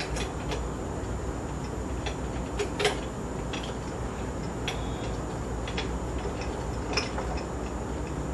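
Irregular light clicks and knocks of baby swing parts being handled and fitted during assembly, the loudest about three seconds in, over a steady low hum.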